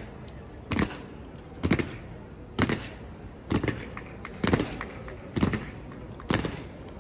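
Honor guard soldiers' boots stamping on stone paving in a slow ceremonial march: seven heavy, evenly spaced stamps, about one a second.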